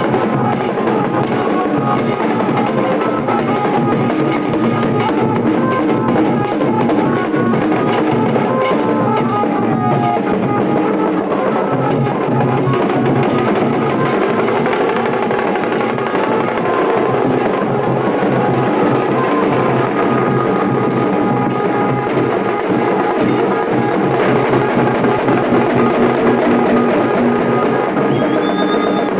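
Nasik dhol drumming: a band of large double-headed dhol drums beaten loudly in a fast, unbroken rhythm.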